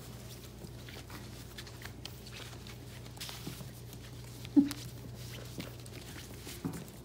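Mini doodle puppies playing and scuffling, with light pattering of paws and bodies on the floor and blanket over a low steady hum, and one short loud sound about four and a half seconds in.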